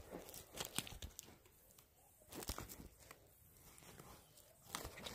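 Faint crinkling and crackling of the plastic wrap on a puck of Bones skate wax as it is handled and turned over, in short scattered crackles.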